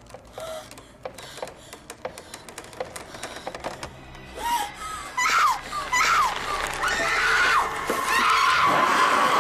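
Scattered sharp knocks and creaks, then from about halfway a woman's terrified screams, repeated and growing louder, over a tense horror-film score.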